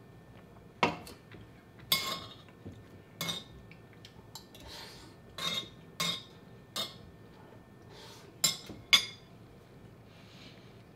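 Cutlery clinking and scraping against a plate during eating: about nine short, irregular clinks, the sharpest two near the end.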